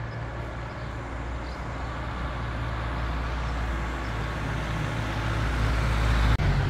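A motor vehicle's engine running close by, a steady low hum that grows gradually louder.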